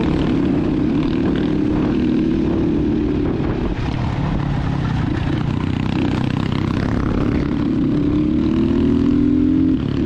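Engine of a Crossfire Cross X 250 SE dirt bike running under way along a road. Its pitch rises over the last two seconds as it speeds up.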